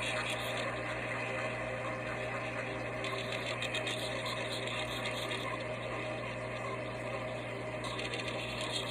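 Steady engine noise: an even, unbroken drone with a strong low hum and several steady higher tones.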